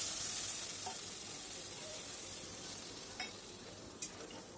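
Hot oil and spice paste in a metal wok sizzling after water is poured in, the hiss steadily dying down. Two light metal clicks near the end.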